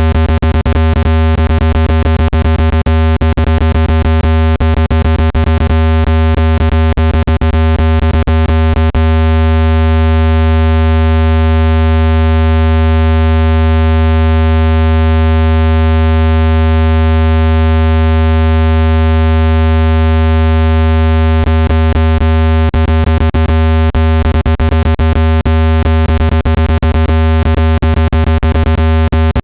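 Loud, steady, deep electronic tone with a stack of higher overtones, a speaker water-eject sound meant to shake trapped water out of a phone speaker. Through the first third and again near the end it is broken by rapid clicking; in the middle it holds steady.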